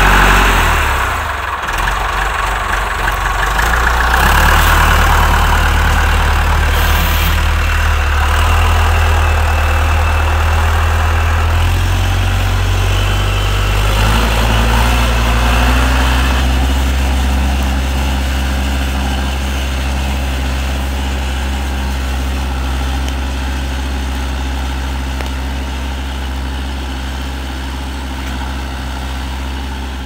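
Massey Ferguson MF50E backhoe's Perkins diesel engine running steadily, its pitch stepping up a little about halfway through.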